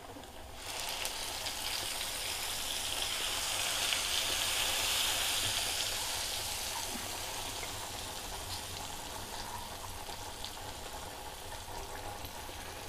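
Ground tomato paste sizzling as it goes into hot oil and ghee in a pan. The sizzle starts suddenly about half a second in, swells to its loudest near the middle, then slowly settles to a softer frying hiss.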